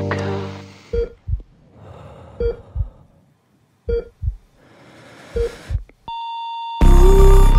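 The music fades out, then heart-monitor beeps sound four times about a second and a half apart, each with a double heartbeat thump. About six seconds in a steady flatline tone begins, and loud music comes crashing back in near the end.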